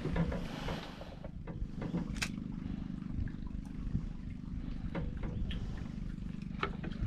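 Low, steady drone of a boat engine running, with scattered light clicks and taps over it.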